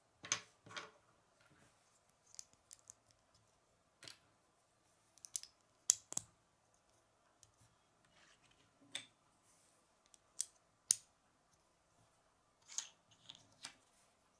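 Small plastic Lego bricks being handled and pressed together: a series of sharp clicks and snaps at irregular intervals, a couple just after the start, a few loud ones in the middle and a cluster near the end.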